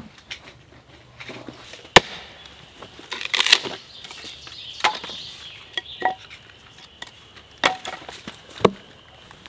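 Hatchet chopping and splitting wood into kindling on a chopping block: a run of sharp chops at irregular intervals, the loudest about two seconds in.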